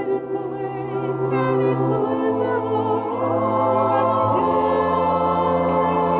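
Choir singing in slow, held chords, the bass line moving to a new note every second or two.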